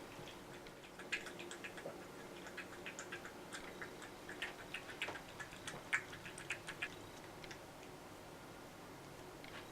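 A cat's mouth making quick, wet, irregular clicks and smacks, about three or four a second, typical of a cat suckling on fabric; they start about a second in and stop a couple of seconds before the end.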